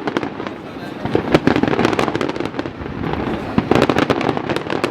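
Aerial fireworks bursting: rapid crackling pops over a low rumble of booms, thickest about a second in and again near the end.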